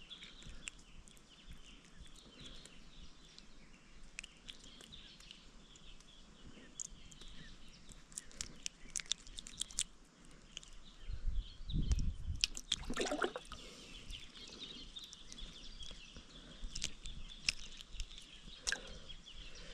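Outdoor ambience with faint bird chirping. Through the middle comes a run of small clicks and knocks, with a few louder low thumps a little past halfway.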